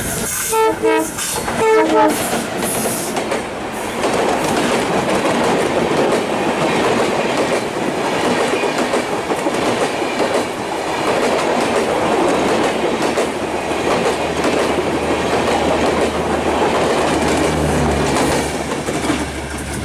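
The diesel locomotive's horn sounds in a few short blasts, then the passenger train runs past on the rails with a steady clattering rumble. A steady low hum comes in near the end.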